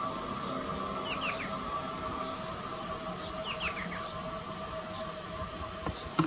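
A small songbird chirping twice, each time a quick run of about four high, falling notes, about a second in and again about three and a half seconds in, over a steady low hum.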